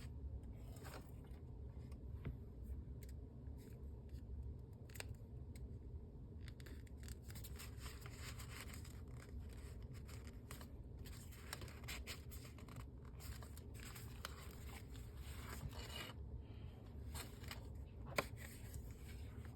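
Paper pages of a handmade junk journal being handled and turned: soft, irregular rustling and scraping, busiest in the middle, with one sharp click near the end, over a steady low hum.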